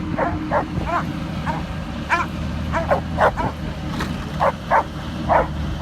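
Dogs barking repeatedly, about two barks a second, over the steady low drone of a helicopter running up before lift-off.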